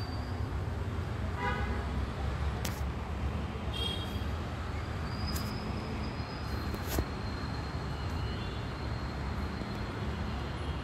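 Steady rumble of distant road traffic with a short vehicle horn toot about a second and a half in and a few faint clicks.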